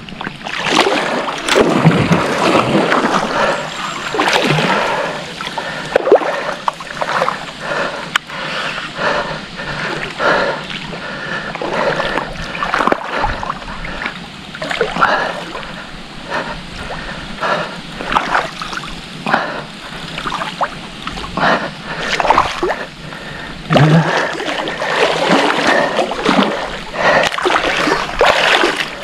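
Water sloshing and splashing in irregular surges as a hooked wels catfish is played close in at the bank's edge. The splashing grows busier near the end as the fish thrashes at the surface.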